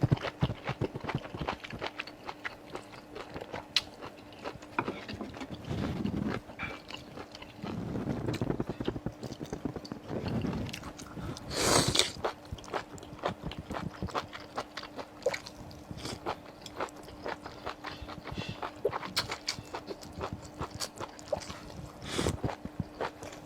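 Close-miked eating: wet, clicky bites and chewing of cold-spiced tripe, with a louder bite or slurp about halfway through. A faint steady hum runs underneath.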